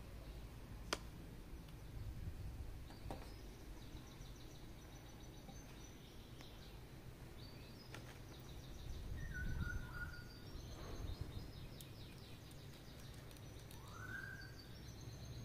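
Quiet handling of a 1/6-scale action figure and its packaging: a few sharp clicks spread through, over a low hum, with high chirping in the background.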